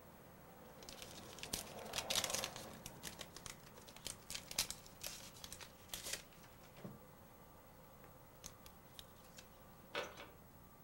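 A paper tea-bag wrapper being torn open and crinkled: a flurry of sharp crackles that thins out to a few light ticks, then a brief louder knock about ten seconds in.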